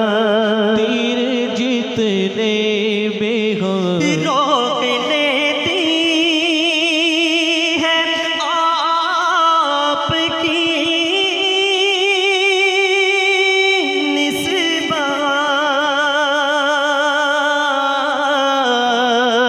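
A male naat reciter sings long, drawn-out notes with a strong wavering vibrato into a handheld microphone, moving to a new held pitch every few seconds.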